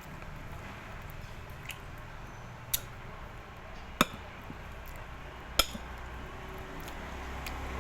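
Cooking utensils clinking now and then against a pot or dish, a few sharp clinks a second or more apart, over a steady low hum.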